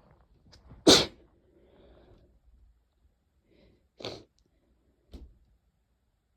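A person with a head cold sneezing once, loudly, about a second in, followed by faint breathing and then two shorter, quieter bursts about three and four seconds later.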